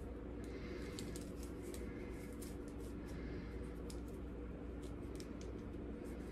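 Faint, scattered light clicks and rustles of a bracelet being handled and taken off its packaging, over a steady low room hum.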